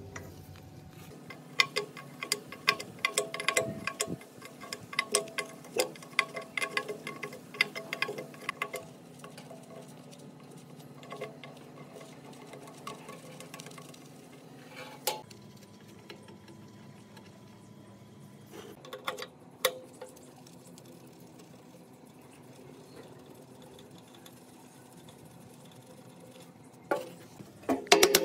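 Small hard parts being handled, with irregular clicks and light taps that come thick and fast in the first third and sparsely after, including a few sharper knocks. A faint steady hum runs underneath.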